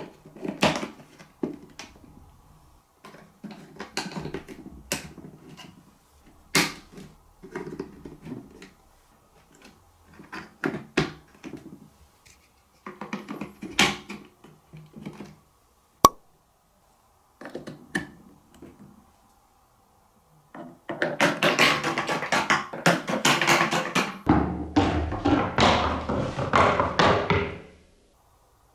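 Plastic marble-run parts (TrixTrack wave slopes and building blocks) being set and pressed into place: scattered short knocks, taps and clicks with pauses between. About 21 seconds in, a ball rolls and rattles along the plastic wave-slope track for some seven seconds, pulsing in loudness, then stops.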